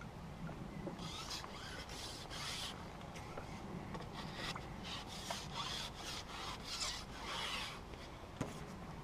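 Carbon fishing pole being pushed out hand over hand, the pole rubbing through the hands in a series of rough, uneven swishes, then one sharp tap near the end.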